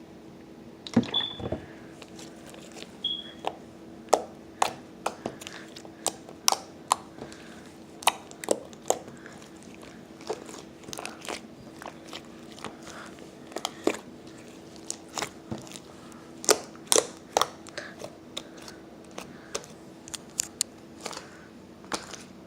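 Slime being played with by hand: irregular sharp clicking and popping as it is squished and stretched, with two brief high squeaks in the first few seconds.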